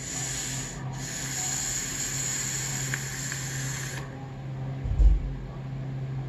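Juggerknot V2 dual-coil top-airflow RTA on a box mod being drawn on: a hissing draw of air through the airflow that lasts about four seconds, with a short break about a second in. The airflow is a little on the noisy side. About a second after the draw ends comes a short, low puff of breath as the vapour is exhaled.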